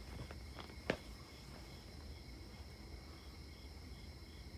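Faint insect chorus chirring steadily outdoors, with a high chirp pulsing about three times a second, and a single sharp click about a second in.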